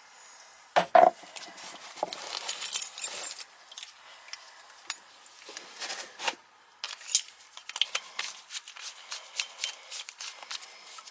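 A condensate drain-clearing gun fired into a clogged air-handler drain line: one short, very loud burst about a second in. Scattered clicks, scrapes and rustles of handling the gun and drain fittings follow.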